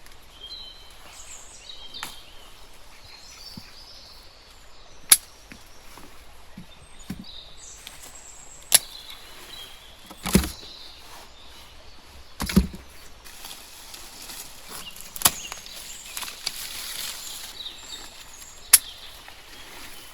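About seven sharp knocks or snaps, spaced irregularly a few seconds apart, with faint bird chirps between them.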